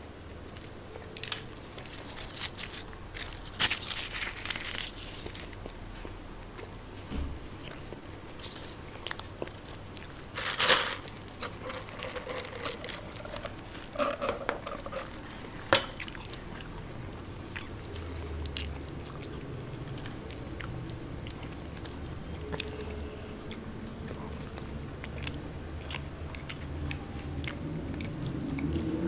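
Close-miked eating: biting, chewing and crunching of snack food, with sharp clicks scattered through, loudest a few seconds in.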